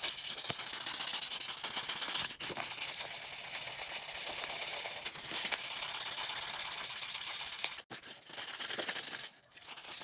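Waterproof sanding pad rubbed back and forth over the steel of needle-nose pliers: a dry, steady scratching, sanding the metal clean. It breaks off about eight seconds in, then comes back in short spells.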